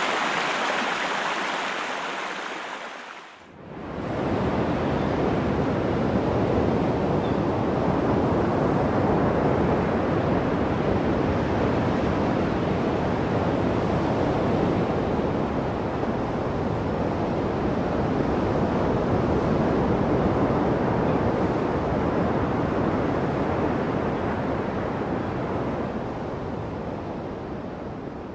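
Waterfall, a steady roar of rushing water. About three and a half seconds in, a brighter, hissier water sound fades out and a deeper, fuller roar fades in. The roar fades down near the end.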